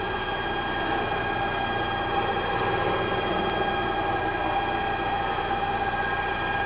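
CNC router's axis drive motors moving the gantry at a steady jog of 5 m/min, a steady whine made of several even tones over mechanical running noise.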